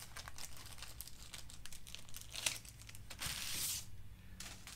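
Clear plastic packaging bag crinkling and rustling as a small part is unwrapped, with scattered small clicks and a louder stretch of rustling about three seconds in.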